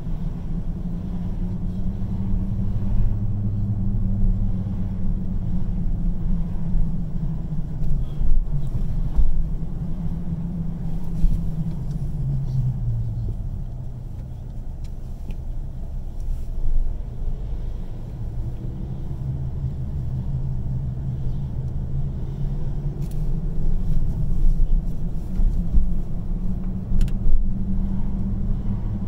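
Car engine and road noise heard from inside the cabin: a steady low rumble whose pitch drifts up and down as the car moves off and slows in stop-and-go driving.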